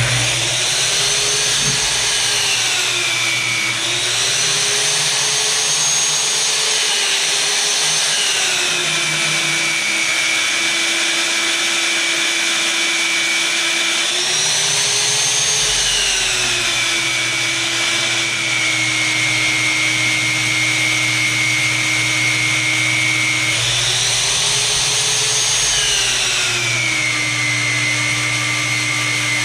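Magnetic drill press motor running an annular cutter through steel plate. Its whine sinks in pitch as the cutter is fed in under load and climbs back each time the feed eases, several times over.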